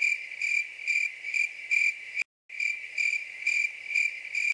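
Cricket chirping laid in as a sound effect: a steady high chirp pulsing a little more than twice a second, broken by a brief dead-silent cut about two seconds in.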